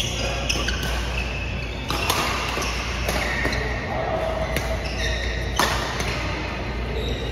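Badminton rackets striking the shuttlecock in a doubles rally, several sharp hits at irregular intervals, with short squeaks of court shoes on the mat between them.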